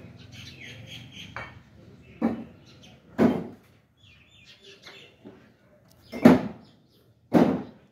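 Four heavy knocks, in two pairs about a second apart, the third the loudest, with birds chirping faintly between them.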